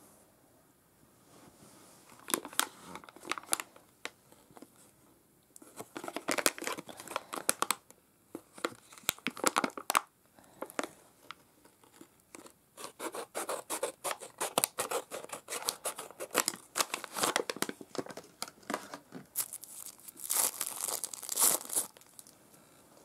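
Plastic packet of a bath ball crinkling and rustling in the hands in repeated spells of crackling as it is handled and opened, loudest near the end as the ball comes out.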